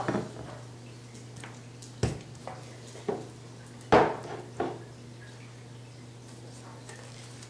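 A few short knocks and clatters of containers and utensils being handled on a kitchen countertop, four in all, the loudest about four seconds in, over a faint steady low hum.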